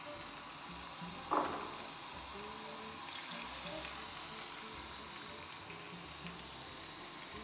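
Tempura-battered pumpkin flowers frying in hot olive oil: a steady sizzle with scattered small crackles. A brief knock about a second and a half in is the loudest moment.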